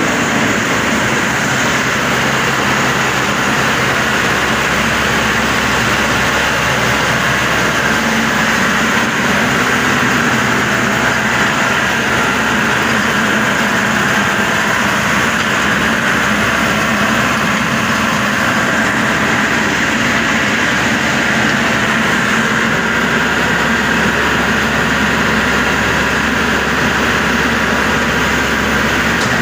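Maxxi Bimo 102 SS combine harvester's engine running steadily at idle, an even mechanical drone.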